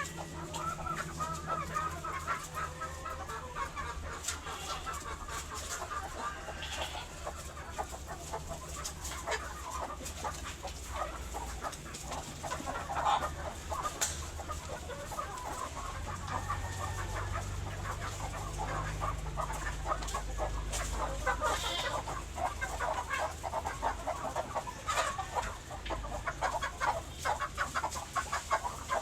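A flock of chickens clucking continuously, many short overlapping calls, with a low steady hum underneath.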